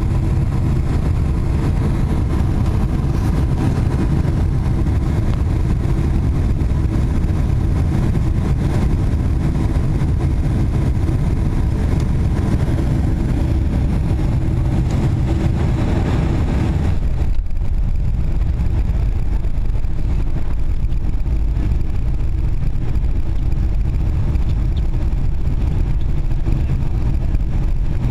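Cabin noise of a Boeing 747 landing, heard from a seat over the wing: the steady rumble and rushing air of the engines and airflow as the jet comes down and rolls along the runway. About seventeen seconds in, the higher rushing sound drops away abruptly, leaving a lower rumble.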